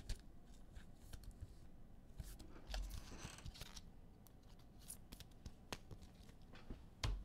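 Trading cards being handled: light clicks and slides of card stock as cards are flicked and set on stacks, with a brief rustle about three seconds in and a soft knock near the end.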